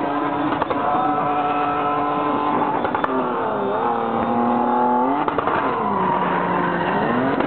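SUV engine running at high revs while drifting. Its pitch holds steady for about three seconds, dips and comes back, then drops lower for over a second and climbs again near the end as the throttle is lifted and reapplied.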